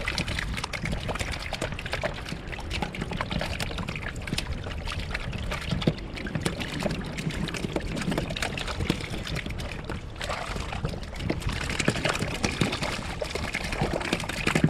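Small waves lapping and sloshing against a kayak's hull, with irregular little splashes and trickles.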